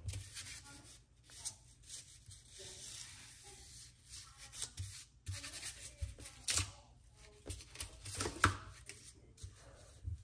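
Faint rubbing and tearing of paper with scattered small clicks and taps, from handling and picking at a painted paper craft.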